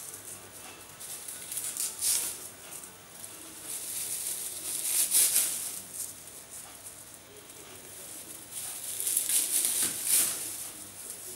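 Dried rosemary needles rustling and crackling as they are dropped onto a heap, in several short bursts of dry crackle, the loudest about five seconds in and around nine to ten seconds in.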